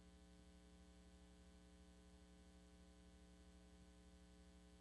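Near silence: a faint, steady electrical hum on a blank stretch of videotape.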